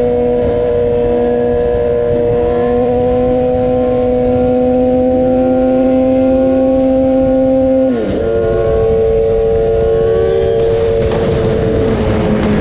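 Sport motorcycle engine running at high, steady revs at highway speed, its pitch creeping up slowly, then dipping sharply about eight seconds in and holding a little lower, over a steady rush of wind noise.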